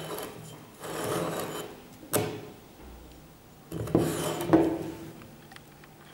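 Steel wear plates, one with a rough chrome carbide hardfacing, scraping and knocking on a wooden tabletop as they are handled. There are two rasping slides with knocks, and the sharpest knock comes about two seconds in.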